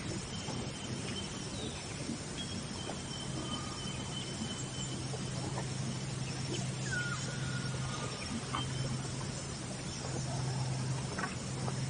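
Outdoor nature ambience: a steady hiss and low hum with a few faint, short bird whistles and chirps scattered through it.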